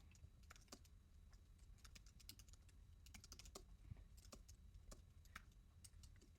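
Computer keyboard typing: scattered, irregular keystroke clicks, faint, over a low steady hum.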